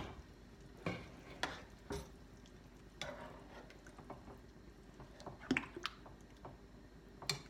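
A spoon stirring spaghetti sauce in a pot, with a few scattered knocks and clinks of the spoon against the pan.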